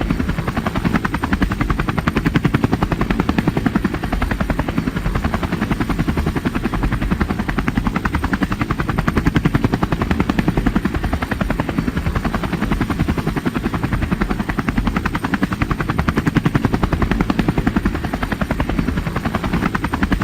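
Helicopter rotor blades chopping in a fast, even beat with the engine running, steady throughout.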